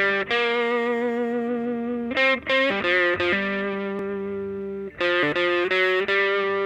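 Electric guitar with distortion playing sustained blues notes and chords as background music.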